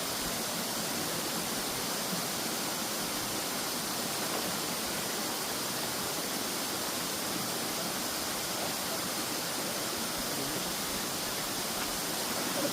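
Waterfall pouring into a pool, a steady unbroken rush of falling water.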